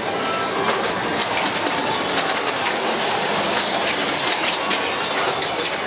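Din of a room full of pinball machines being played at once: a steady wash of noise with many short, sharp clicks and knocks.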